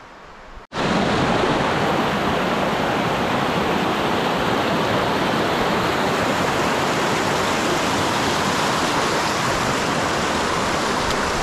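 Rushing whitewater of a small creek tumbling over rocks, loud and steady and close, starting suddenly under a second in. The creek is running high after heavy rain.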